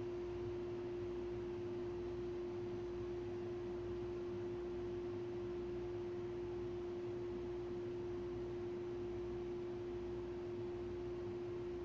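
A steady, unchanging pure tone with a faint low hum beneath it, from an unseen electrical or mechanical source.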